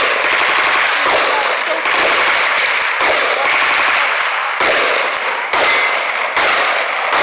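Gunshots at a shooting range: about ten shots fired at an uneven pace, roughly one a second, each trailing a long echo so that the reports run into one another.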